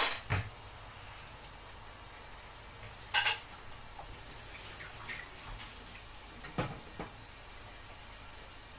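Dishes and utensils clattering at a kitchen sink as a bowl and spoon are handled: sharp clinks and knocks, two at the start, one about three seconds in and two more near the end, over a steady faint hiss.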